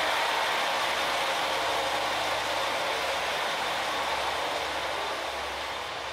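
JR Kyushu KiHa 185-series diesel railcar idling at the platform: a steady engine hum under a continuous rushing noise.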